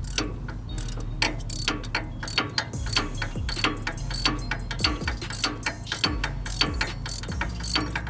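Socket ratchet wrench clicking in a quick, steady run of strokes, several clicks a second, as a bolt on the wheel hub assembly is turned.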